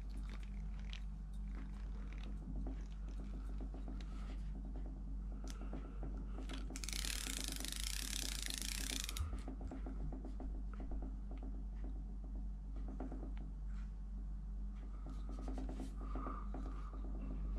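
Vintage Shimano DUX spinning reel being cranked by hand, its gearing ticking rapidly and evenly as the handle turns; the old reel's mechanism still works. About seven seconds in, a hiss lasts about two seconds.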